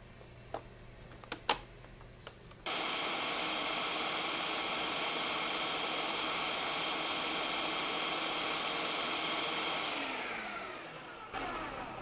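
Countertop electric blender switched on with a sudden start, running steadily as it blends collard-green pesto with olive oil, then spinning down with falling pitch and stopping near the end. A few light clicks come before it starts.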